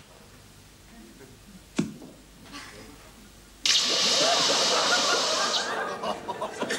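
A single sharp knock, then about halfway through a sudden loud rush of splashing, gushing water that holds for about two seconds and then eases off.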